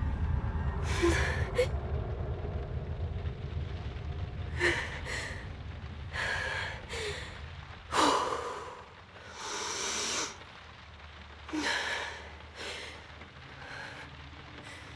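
A woman breathing shakily in distress, with a gasp or sob every second or two; the sharpest gasp comes about 8 seconds in. A low drone underneath fades away over the first half.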